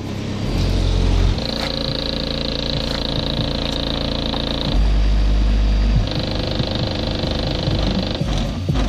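Bass-heavy music played loud through a car audio system's Ural AS-D12.3 subwoofer, driven by an Art Sound XE1K amplifier. Deep bass hits come in heavily twice, about half a second in and again about five seconds in, each lasting around a second, under held higher notes.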